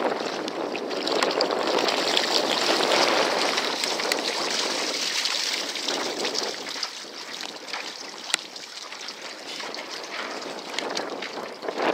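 Gusty wind and choppy lake water: a steady rushing noise that eases somewhat in the second half, with a single sharp click about eight seconds in.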